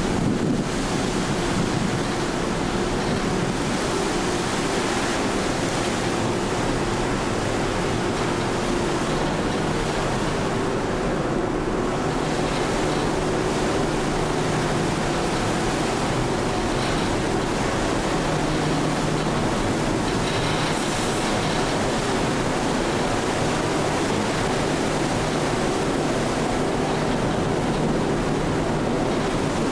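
Steady rumble and hum of the car ferry Koningin Beatrix's engines and propulsion as it manoeuvres into its berth, with wind and water noise on deck. A lower engine note comes in for several seconds midway.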